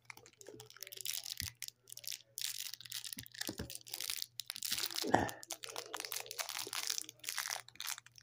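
Close, irregular rustling and crinkling with scattered clicks, louder about five seconds in, over a faint steady low hum.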